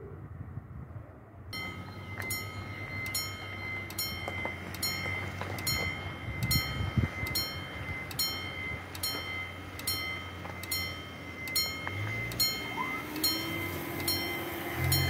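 Italian level crossing's electronic warning bell starts ringing about a second and a half in, striking about twice a second with a steady ringing tone, as the crossing activates for an approaching train. Near the end a steady motor hum joins as the barriers begin to lower.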